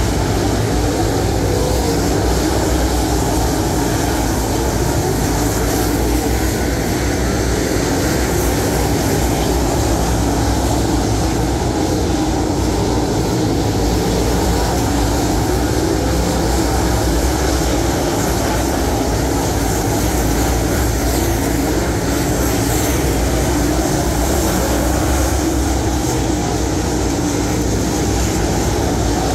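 A pack of dirt late model race cars lapping a clay oval at racing speed, their V8 engines a loud, steady drone.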